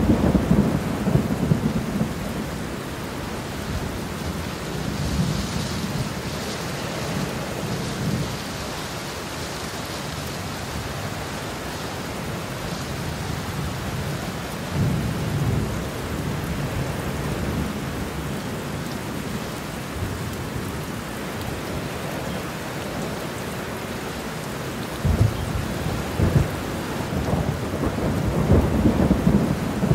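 Steady heavy rain with thunder rumbling low several times. The rumbles are strongest near the start and in the last few seconds.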